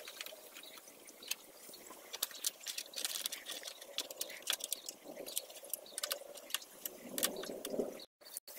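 Scattered clicks and taps of a screwdriver and plastic motorcycle body panels being handled and fitted, with two brief dropouts near the end where the sound cuts out.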